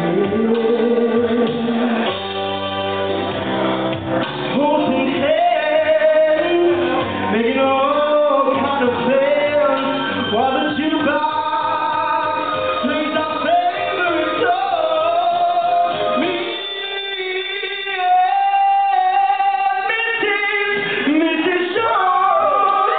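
A man singing karaoke into a microphone over a recorded backing track. The bass of the backing drops out about two-thirds of the way through, leaving the voice over a thinner accompaniment before it fills out again near the end.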